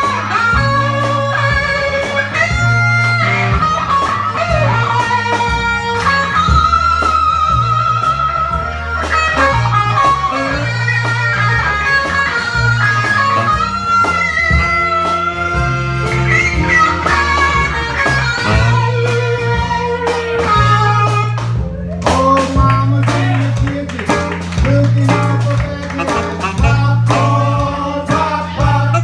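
Live band playing, with electric guitar carrying the lead over bass and drums. About three-quarters of the way through, the band cuts out for a moment and comes back in with a run of sharp accented hits.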